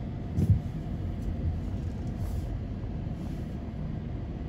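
Steady low engine rumble, with a brief thump about half a second in.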